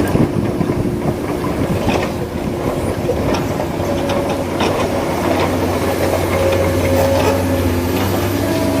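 Heavy engine running steadily, with scattered clacks and knocks, typical of an excavator loading broken stone into a dump truck.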